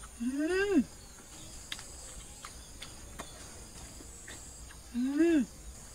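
A goose calling twice, about four and a half seconds apart: each call is a clear, drawn-out honk that rises then falls in pitch. Insects chirr steadily in the background.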